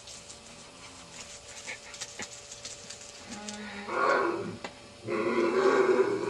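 An animal's drawn-out calls: a short call about four seconds in, then a longer, louder one held for about a second near the end.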